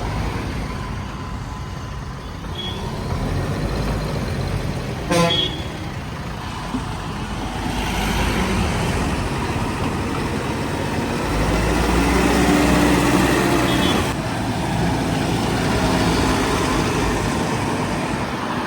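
JCB 3DX Plus backhoe loader's diesel engine running, louder for a few seconds past the middle. A short horn toot sounds about five seconds in.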